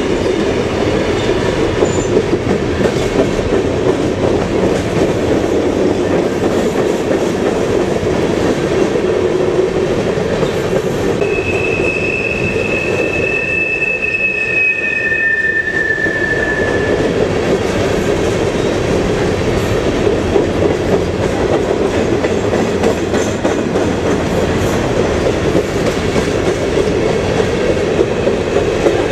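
Freight cars (tank cars, then open hopper cars) of a BNSF train rolling past close by: a steady, loud rumble of wheels on rail. About halfway through, two high steady wheel squeals sound for several seconds.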